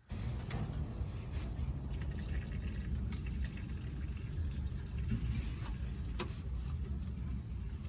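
Diesel fuel running steadily out of a disconnected fuel line, with one sharp click about six seconds in.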